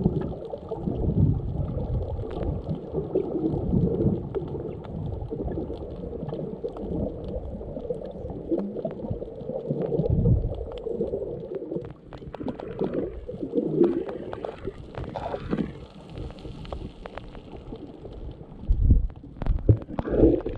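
Muffled underwater rumbling and gurgling of water moving around an underwater camera, swelling and fading every few seconds, with scattered faint clicks in the second half.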